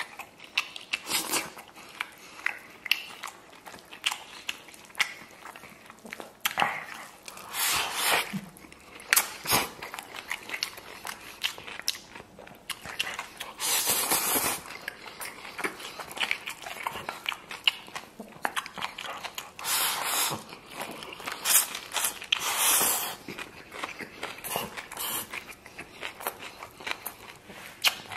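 Close-up eating of rice and vegetables: wet chewing and lip smacks with many sharp clicks. Several noisy, roughly second-long bursts occur, the longest about 14 seconds in, as food is shovelled from the bowl into the mouth with chopsticks.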